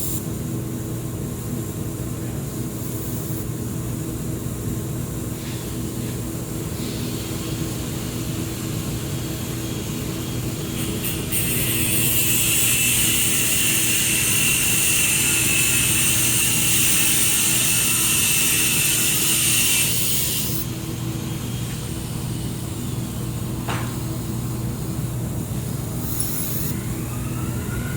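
Air-cooled handheld laser welder: its cooling fans run with a steady hum, and for about eight seconds in the middle a louder hiss with a high steady whine comes in and then cuts off as a weld is run.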